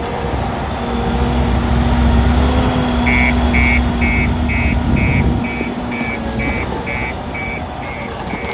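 2024 JCB 155HD skid steer loader's diesel engine running with a heavy low rumble. About three seconds in, its reversing alarm starts beeping steadily, about two high beeps a second, as the machine backs up, and the engine rumble eases shortly after.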